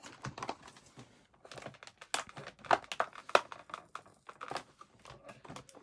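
Toy packaging being handled: irregular crinkling and crackling with scattered sharp clicks as the doll's accessories are worked free of the box.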